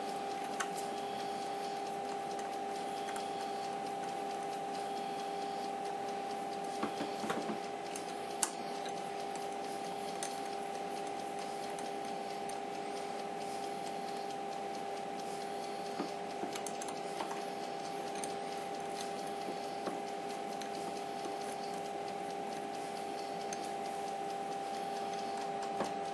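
Steady electrical hum from the switched-on Emco Compact 5 CNC lathe, holding two pitches. A few faint metallic clicks and taps come from the turret's socket-cap fixing screws being handled and dropped in, a couple around a third of the way in and a couple more past the middle.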